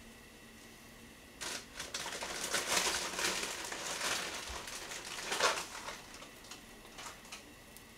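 Crackling, crinkling noise of something being crumpled. It starts about a second and a half in, lasts about four and a half seconds with a sharp peak near the end, and a few faint clicks follow.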